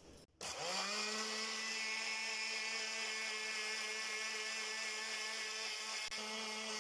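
Electric blender (mixer-grinder) motor blending mint leaves with water: it switches on just under half a second in, spins up quickly to a steady whine, and runs evenly until it is switched off near the end, its pitch starting to fall as it winds down.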